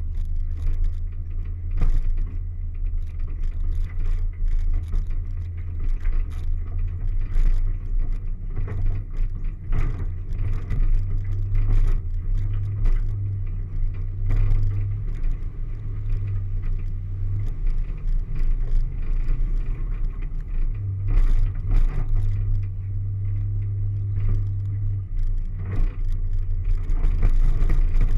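Off-road vehicle's engine running steadily as it drives over rough, rutted mud, with frequent knocks and rattles from the jolts.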